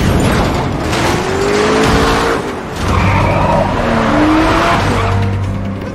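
Car-chase sound effects: cars speeding with a dense rush of engine and road noise, and tyres squealing in long sliding tones, twice.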